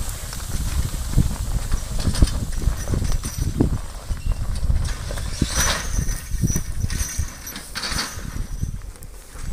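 Team of draft horses pulling a hay wagon: irregular clanking and rattling of the wagon's metal frame and harness chains, with hoofbeats.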